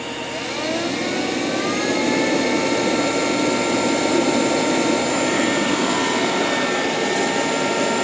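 Miele Scout RX2 robot vacuum cleaner running, its motor and suction fan giving a steady whir with a high whine that rises in pitch over the first second or so, then holds.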